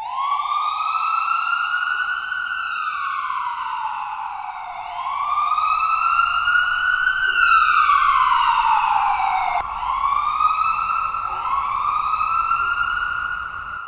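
A wailing emergency siren, its pitch rising slowly and falling again about every five seconds; near the end two wails overlap.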